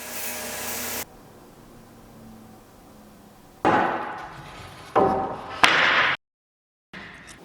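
Workshop sounds on wood: a power tool running cuts off about a second in, then after a pause come two heavy knocks on wood a little over a second apart, each ringing briefly, followed by a sharp click.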